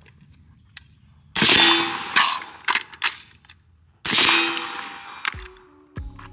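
Two suppressed shots from a BCM 11.5-inch AR-15 short-barrelled rifle fitted with a Surefire SB2 suppressor, about two and a half seconds apart, each with a fading tail. Between them come sharp metallic clicks and clanks, the magazine change of a one-reload-one drill. Background music starts near the end.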